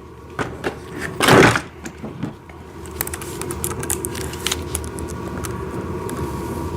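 A brief handling noise about a second in, then a power drill runs steadily from about three seconds in, driving in the screws that hold the ride-on excavator's bucket.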